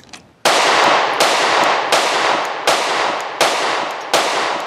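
Six 9mm shots from a Sig P365 XMacro pistol with a ported slide, fired at a steady pace about three-quarters of a second apart beginning about half a second in, each followed by a long ringing echo.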